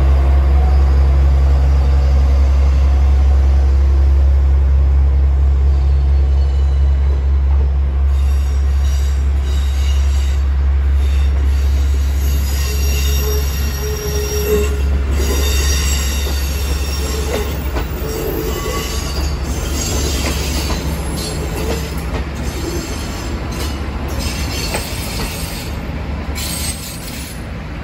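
Diesel engine of the departing Aru Ressha railcar running with a deep, steady rumble that slowly fades. From about eight seconds in, train wheels squeal high on the rails, on and off, as a second train passes.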